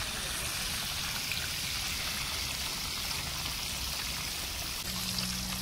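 A whole lamb sizzling in hot fat and juices in a large aluminium cooking pot: a steady, even hiss.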